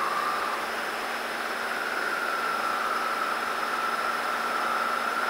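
Cessna 150's four-cylinder Continental O-200 engine and propeller droning steadily as heard inside the small cabin in flight, with a faint high whine that wavers slightly in pitch.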